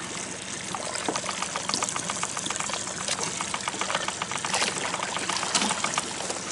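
Water splashing and pouring off a large paddlefish as it is hauled out of the lake over the side of a boat, with a rapid run of small splashes and drips.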